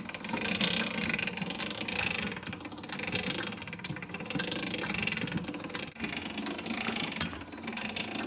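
Hand-cranked cast-iron pillar drill turning by its flywheel handwheel and bevel gears, the twist bit cutting through the centre of a small toothed pulley. A steady gear-and-cutting rumble with regular clicks about twice a second.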